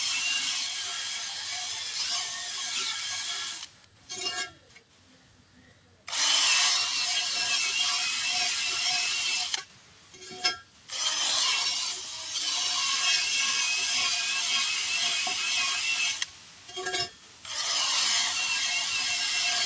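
A handheld power tool scouring the bead seat of a steel truck wheel rim. It runs in long stretches of several seconds with short pauses between them, its motor tone wavering under load.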